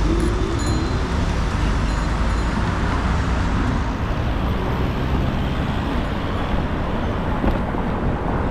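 Steady road traffic noise: passing cars and buses making a continuous low rumble with no distinct events.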